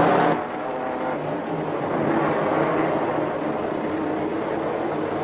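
Steady roaring rush of an animated-cartoon sound effect for the terrorists' bullet-shaped rocket car in flight. It takes over as a burst of orchestral music ends just after the start.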